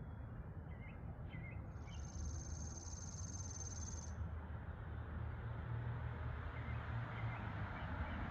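Morning outdoor ambience: a few short bird chirps in the first two seconds and a couple of faint ones later, and a high, even buzzing trill lasting about two seconds, over a steady low rumble.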